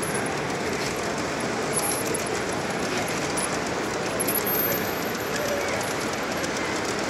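A G scale model coal train of hopper cars rolls past on the track, its wheels making light, rapid clicks over the rails, over the steady murmur of a crowded hall.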